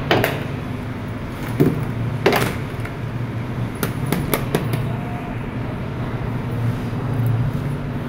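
Hollow plastic ball-pit balls knocking and clacking together as a child moves in the pit, several sharp clicks in the first five seconds, over a steady low hum.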